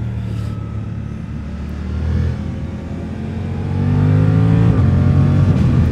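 Suzuki GSX-8S's parallel-twin engine running under way, its note rising as it accelerates from about three and a half seconds in, then a short break in the note near the end.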